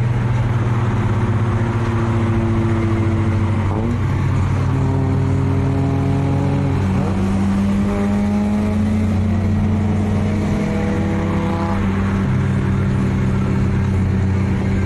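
Car engines running: a deep, steady note, with higher engine tones that shift in pitch every few seconds and rise slightly, as in light revving.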